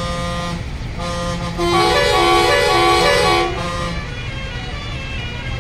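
Vehicle horns honking: a steady held horn tone, then from about two seconds in a louder musical horn playing a short run of stepped notes for a second and a half, over low traffic rumble.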